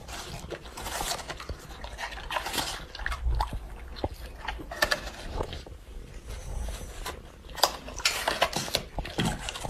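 Golden retrievers, an adult and a puppy, biting and crunching raw apple in irregular crunches and clicks.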